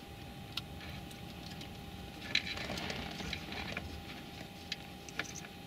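Light rustling of a stereo wiring harness and scattered small plastic clicks as gloved hands plug crimped wire connectors together.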